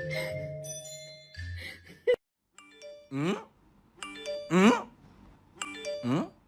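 Soundtrack music with mallet percussion, cut off by a sharp click about two seconds in. Then a repeating cue of short chime notes, each followed by a quick rising swoop, comes back about every one and a half seconds.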